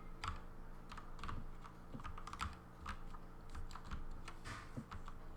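Stenography chords struck on a Redragon K552 mechanical keyboard with 3D-printed flat keycaps, light 15-gram springs and a Lego case: clusters of key clicks, several keys pressed together in each stroke, a few strokes a second in an uneven rhythm.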